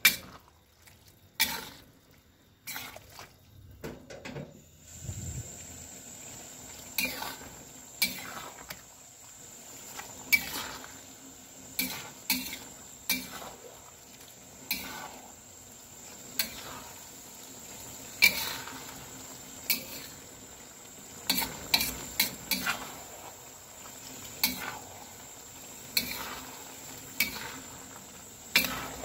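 Metal spatula scraping and knocking against a stainless-steel wok as noodles and vegetables are stir-fried, with sharp knocks every second or two. A steady sizzle sets in about five seconds in.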